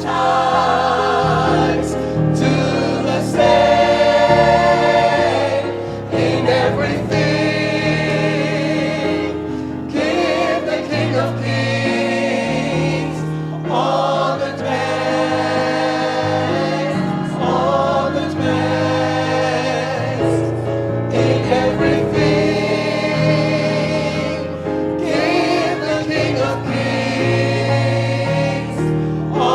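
Gospel church choir singing, with sustained, wavering sung notes.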